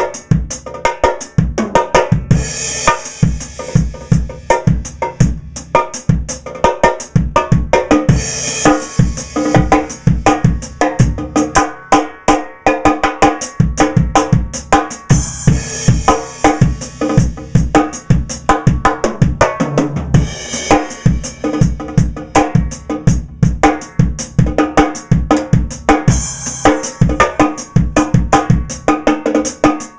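Drum kit beat built around a Pearl Firecracker steel-shell snare, played with the snares off and tuned very high, with bass drum strokes underneath. A cymbal crashes four times along the way.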